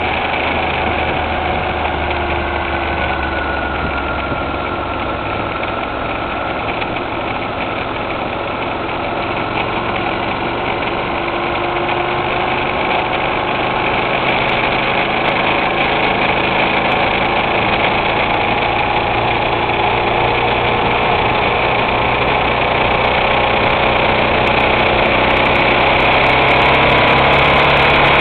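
Twin-cylinder motorcycle engine running on the move, its pitch drifting slowly up and down over a steady rushing noise. It grows a little louder in the last third.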